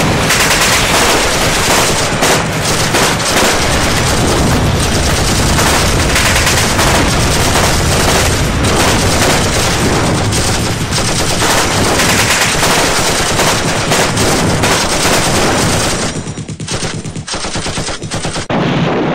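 Dense, continuous automatic gunfire, many rapid shots overlapping into a steady roll. It thins out about sixteen seconds in, then a last loud burst comes near the end.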